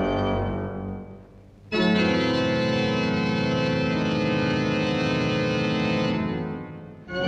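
Organ music of long, steady held chords. One chord fades out about a second in, a new one sounds just under two seconds in and is held, then dies away near the end as another begins.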